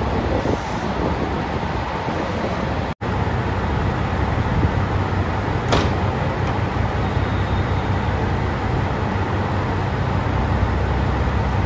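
JR Shikoku 2700 series diesel railcar standing with its engine idling: a steady low rumble. There is one brief sharp sound about six seconds in.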